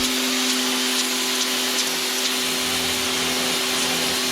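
Parkside PHD 110 D1 1300-watt electric pressure washer running under load, its motor and pump humming steadily under the loud hiss of the water jet blasting dirt and moss from brick paving.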